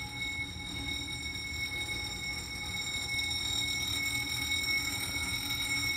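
Apartment building's medical call bell sounding a steady high-pitched tone over a low hum, signalling a resident's call for medical help.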